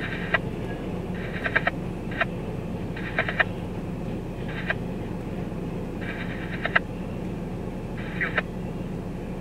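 Canadian Pacific double-stack container freight train rolling past over a level crossing, a steady low rumble with irregular clusters of clattering wheel clicks every second or so.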